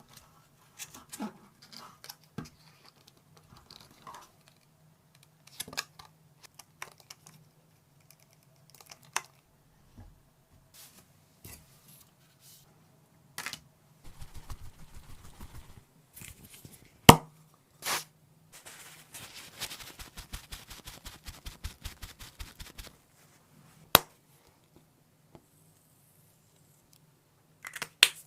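Small handling sounds of hand-crafting work: scattered clicks and knocks, a few sharp snaps, and two stretches of fast, even scraping or ticking.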